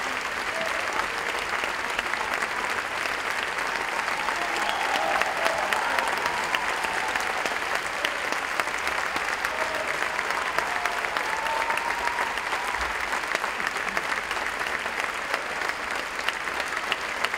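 Large audience applauding steadily, a dense mass of hand claps that holds at an even level.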